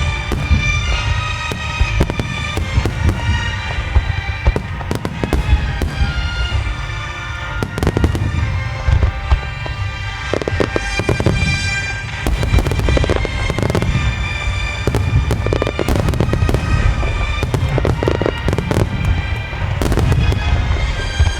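Aerial fireworks shells bursting in quick succession: many sharp bangs and crackles over a continuous low rumble, with music of sustained tones playing along with the display.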